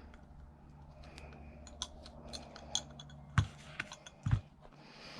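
Light clicks and taps of small hard objects being handled, as a thread-lock bottle is worked to get it to dispense, with two louder knocks a second apart about three and a half seconds in.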